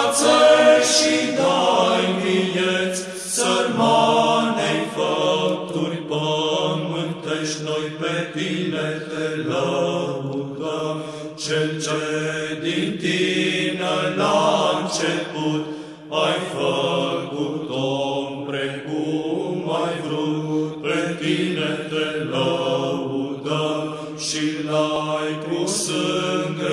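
Voices singing a Romanian Orthodox hymn of praise in a chant style.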